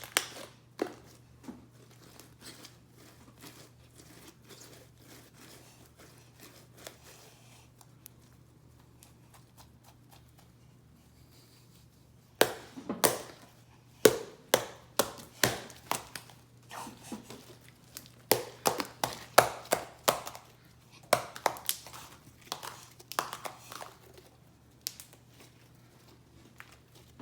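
Homemade glue slime being squeezed and stretched by hand, giving sharp crackling pops and clicks. The pops are sparse at first and come in quick, dense runs from about halfway through.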